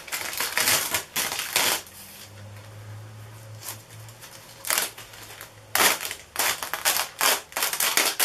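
Perforated plastic release film being peeled and pulled off a cured composite tube, crinkling and crackling in irregular bursts with a quieter lull in the middle.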